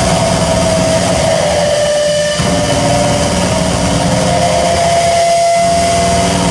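Loud live electronic noise drone played through a PA: a rough, dense low layer with a wavering tone above it and hiss on top. The low layer briefly drops out twice.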